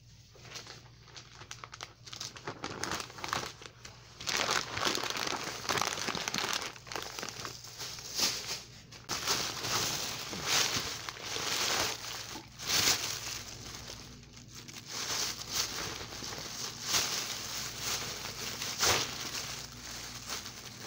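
Thin clear plastic bag crinkling and rustling in irregular bursts as it is handled, filled with oranges and knotted shut, faint at first and louder from about four seconds in.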